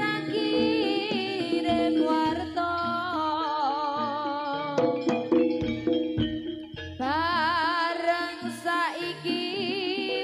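Javanese jaranan ensemble playing live: drum strokes and gamelan over a steady held tone, with a melody sung in long wavering notes.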